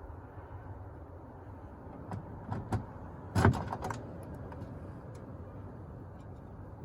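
Parts being handled at an open car door: a few light clicks and one louder knock about three and a half seconds in, over a steady low background noise.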